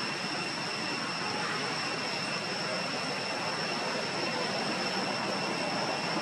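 Steady outdoor background noise: an even rushing sound with a thin, constant high-pitched whine on top. No separate calls or knocks stand out.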